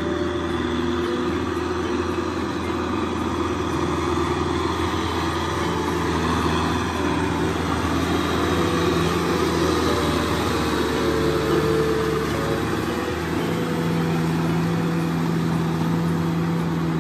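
Kubota M6040SU tractor's four-cylinder diesel engine running steadily under load as it drives a rotary tiller through a flooded, muddy paddy field. It gets somewhat louder in the middle as the tractor comes close.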